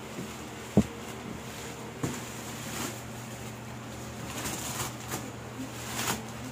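Plastic stretch film and bubble wrap rustling and crinkling as it is cut and pulled off a large cardboard box, with a sharp knock about a second in and a duller thump about two seconds in. A steady low hum runs underneath.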